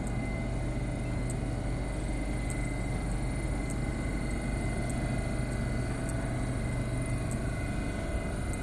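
Steady low hum of a metro train standing at an underground platform with its doors open, with a thin steady high tone and faint ticks about once a second.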